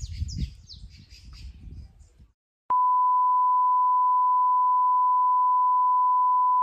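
A bird chirping repeatedly over a low outdoor rumble, cut off after about two seconds. After a moment of silence, a steady high-pitched test-tone beep, the kind played with TV colour bars, starts abruptly with a click and holds at one pitch.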